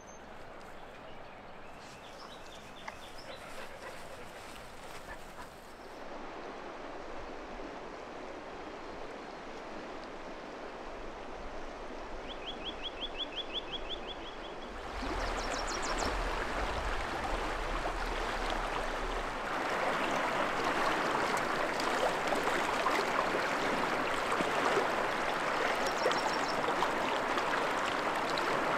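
River water rushing steadily over rocks, growing louder in steps. A small bird gives a quick trill about halfway through, and a few high chirps come over the water later.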